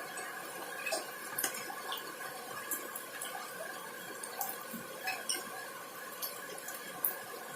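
Rain falling, with large raindrops landing as irregular sharp ticks and splats over a steady hiss.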